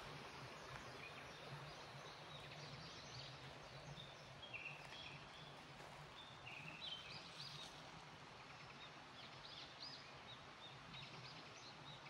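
Faint birds calling: scattered short high chirps and a few brief whistled notes over a low, steady background noise.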